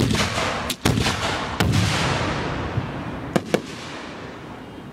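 Fireworks exploding close overhead: a quick run of sharp bangs in the first two seconds and two more about three and a half seconds in, over a crackling hiss that slowly fades.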